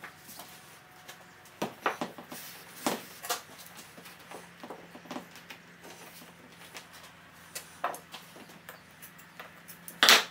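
Handling noise from a covered dashboard crash pad being picked up and moved about on a workbench: scattered rustles, light taps and knocks, with one loud sharp knock near the end.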